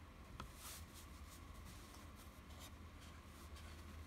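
Very quiet handling of a picture book: a few faint scratchy rubs and ticks of fingers on the pages, with the page being turned near the end.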